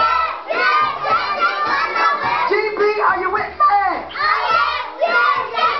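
A group of young children singing a song together in loud chorus.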